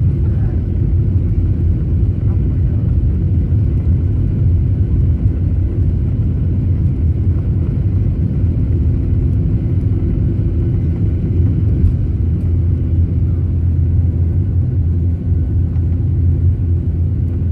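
Jet airliner's engines at takeoff power heard from inside the cabin, a steady low rumble, as the plane rolls down the runway and lifts off.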